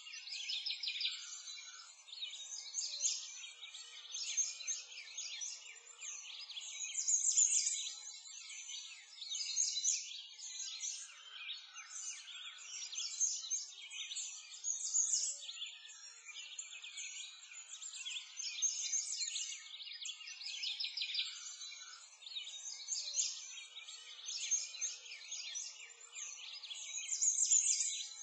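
A dense chorus of many small birds chirping and twittering continuously, with overlapping high, quick calls.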